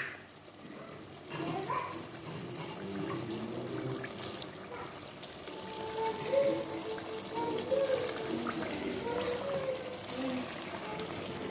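Chicken and potato stew bubbling in a pot as it simmers, stirred now and then with a wooden spoon.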